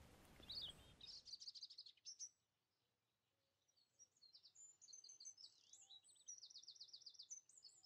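Faint songbirds chirping and trilling high up. There is a quick trill about a second in, scattered calls after it, and a fast run of repeated notes near the end.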